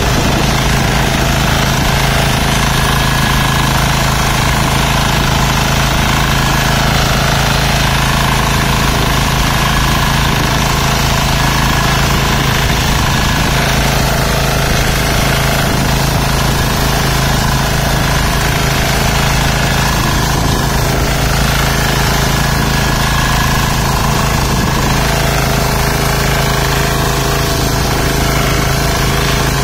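Texas Alligator 9DPE power weeder's engine running steadily under load while its rotary tines churn through the wet paddy mud.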